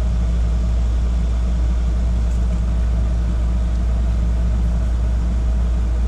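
Steady low mechanical hum, like a motor or fan running, unchanging throughout.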